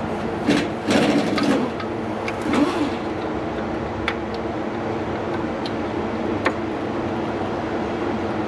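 Metal hand tools clicking and clinking against engine parts, with a short rattling cluster about a second in and single clicks later, over a steady background hum.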